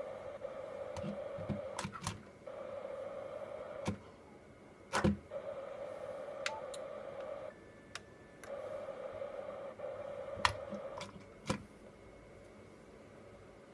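Yaesu ham transceiver scanning FM repeater memory channels: a steady hiss from its speaker lasts about two seconds on each channel, broken by short gaps and sharp clicks as it steps to the next.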